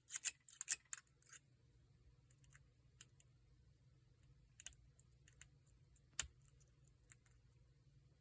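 Small metallic clicks of a hook pick and tension wrench working the security pins inside a Paclock 90A-PRO padlock: a quick run of clicks in the first second or so, then scattered single clicks, the loudest about six seconds in.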